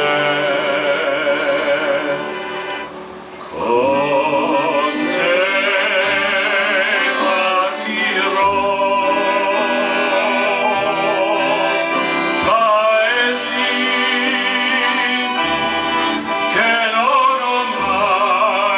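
A red Giustozzi chromatic button accordion playing a song while a man sings along into a microphone, holding long wavering notes. The music drops briefly about three seconds in.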